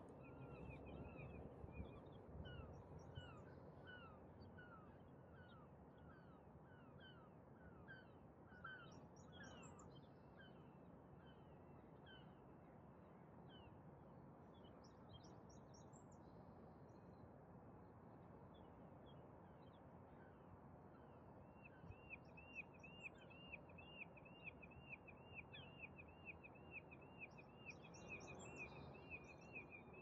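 Small birds chirping over a faint, steady hum of distant city noise. One bird repeats a short note about twice a second early on. From about two-thirds of the way in, another gives a quick run of high notes, about four a second.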